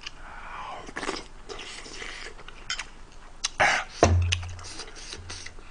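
A man eating a spoonful of kimchi stew: wet mouth and chewing sounds with a few sharp clicks. About four seconds in comes a low closed-mouth 'mmm', twice.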